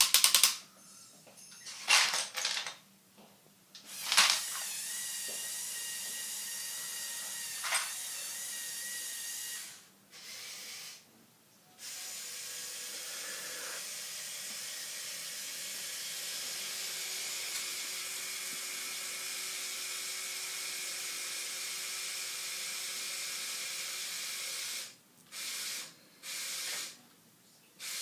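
Small electric motors and plastic gears of a Lego Technic Volvo L350F wheel loader model whirring with a high whine. The sound runs in a few short bursts at first, then in two long steady runs, and ends in a string of short bursts.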